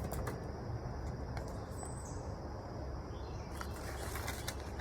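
Outdoor background ambience: a steady low rumble with a few faint clicks, and one brief high chirp about two seconds in.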